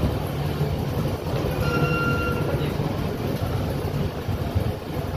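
Passenger train running, heard from an open coach doorway: a steady rumble of wheels on the track, with a brief high squeal about a second and a half in.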